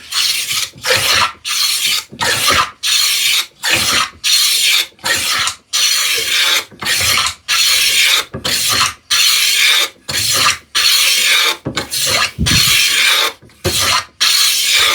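No. 5 hand plane taking quick, short strokes along the edge of a cherry tambour slat, cutting a chamfer: a rapid run of about two dozen hissing shaving cuts, one or two a second. Near the end the cut runs against the grain.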